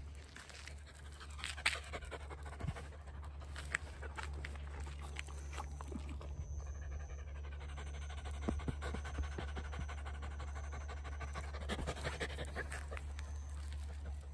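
A dog panting, over a steady low hum, with a few short clicks in the first few seconds.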